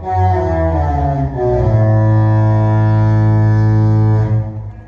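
Disney cruise ship's musical horn playing a tune of several low notes, ending on a long held note that dies away near the end.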